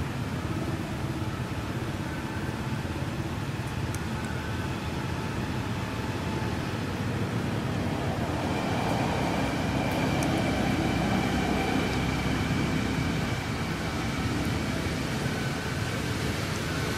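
Steady road traffic noise from passing vehicles, growing a little louder around the middle as a vehicle goes by.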